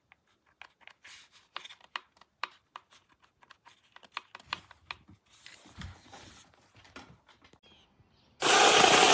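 Scattered small clicks and knocks of a cordless mini chainsaw being handled. A little over eight seconds in, the saw starts up suddenly and runs loud and steady, most likely cutting wood.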